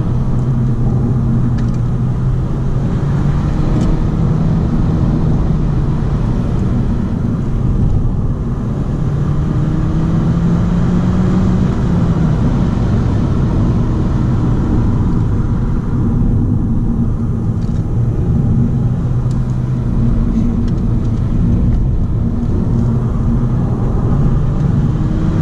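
Audi A3 1.4 TFSI's turbocharged four-cylinder petrol engine and tyre rumble heard from inside the cabin while driving. The engine pitch climbs as the car accelerates about nine seconds in and again near the end.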